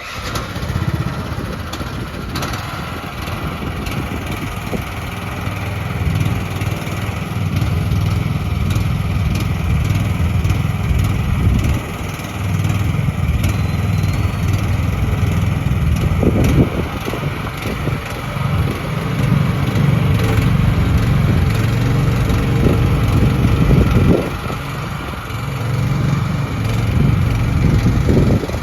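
Small gasoline engine of an AGT QH13R mini excavator running through a working demo. Its sound rises and falls several times as the machine is operated.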